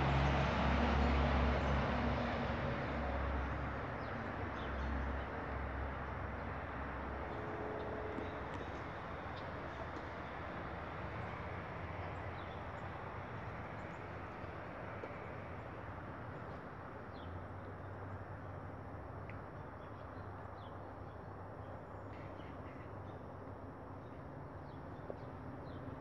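Outdoor background noise: a low rumble, loudest at the start and easing off over the first several seconds, under a steady hiss, with faint short bird chirps now and then.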